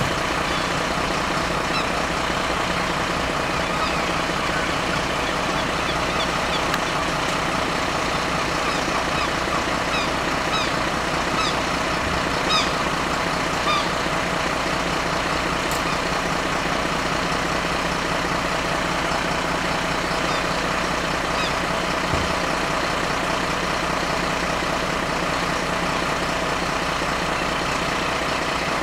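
MAN fire engine's diesel engine idling steadily while the appliance stands waiting to turn out.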